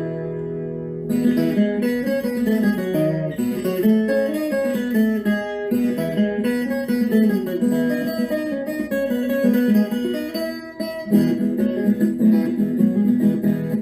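Background music: acoustic guitar playing, plucked notes and strums. A held chord opens it, and the rapid picking starts about a second in.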